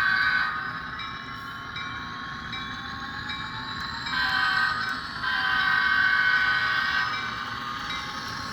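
Sound decoder of an HO scale F59PH model locomotive playing its diesel horn, played through the model's small speaker: the end of one blast right at the start, then a short blast about four seconds in and a longer one just after. Under the horn the recorded diesel engine sound runs on, with a whine slowly rising in pitch as the locomotive is brought back up to speed.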